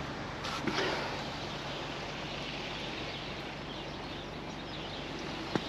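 Steady outdoor background noise with no single clear source, a few faint short sounds about half a second in and a sharp click near the end.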